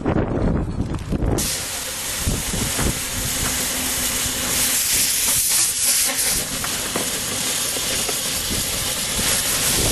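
Small steam locomotive on a 15-inch gauge line hissing steam steadily, after a low rumble that cuts off abruptly about a second and a half in.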